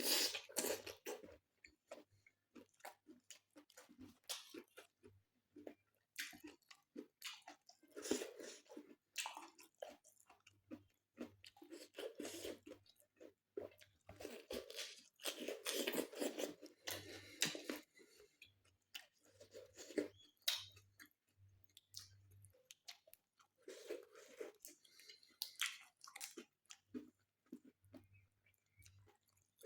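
A person chewing and biting food: irregular bouts of chewing and crunching made up of many small clicks, with short pauses between them.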